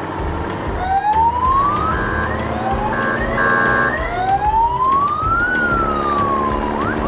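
A siren sound effect, its pitch sliding upward several times and then rising and falling in one long wail, over background music.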